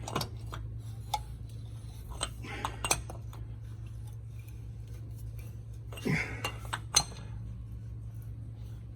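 Scattered metallic clinks and knocks from a socket and large torque wrench on the jam nut of a Rockwell front wheel hub as it is tightened, with a cluster about two to three seconds in and a sharp click about seven seconds in, over a steady low hum.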